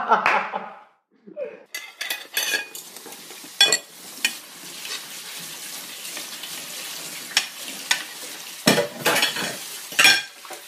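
Kitchen work: utensils and dishes clinking, then a steady hiss with scattered pops for several seconds. A louder burst of clattering comes near the end.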